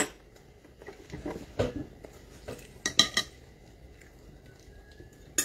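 Metal eating utensils clinking and scraping against plates and bowls, a few sharp clinks, with a quick cluster of them about three seconds in.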